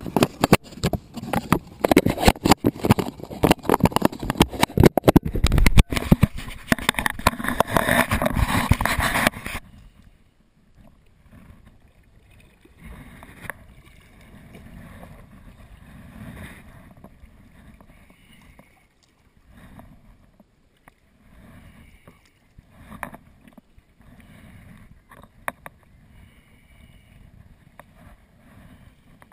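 Loud rubbing and knocking close to the microphone for about the first ten seconds, stopping abruptly. Then a sea kayak is paddled on calm water: soft, muffled paddle strokes and water wash swelling every couple of seconds.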